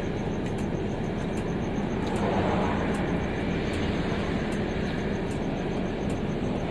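Steady low rumble of a stationary coach bus's idling diesel engine and running air conditioning, heard from inside the cabin, swelling slightly for a moment as traffic passes.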